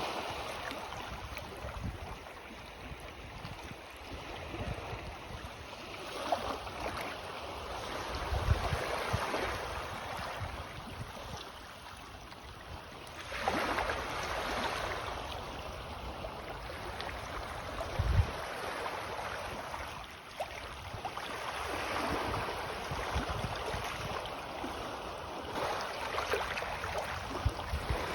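Small sea waves lapping on the shore as the tide comes in, each ripple washing up and drawing back every few seconds. A couple of short low thumps stand out above the water.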